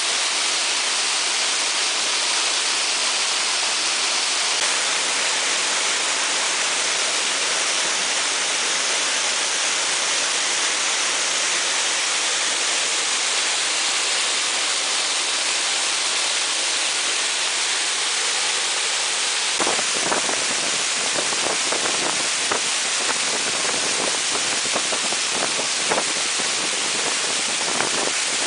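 Waterfall rushing in a steady, even hiss. From about two-thirds of the way through, scattered short knocks and crackles join it.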